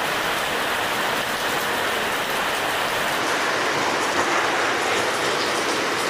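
Heavy rain falling steadily, an even hiss of drops.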